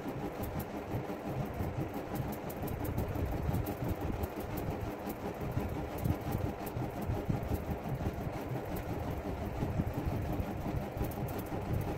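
Steady low mechanical rumble in the background, even throughout with no distinct events.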